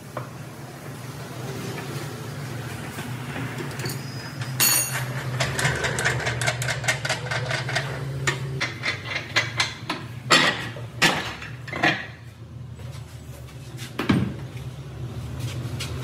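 Metal clanking as the steel clamp of a tire-patch press is handled: a quick run of small metallic clicks and rattles, then four louder knocks spread over a few seconds, over a steady low hum.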